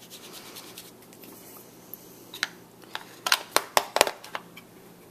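Ink blending tool scuffing faintly over the edge of a cardstock piece, then a quick series of about six sharp taps and clicks as it is dabbed onto a distress ink pad to pick up more ink.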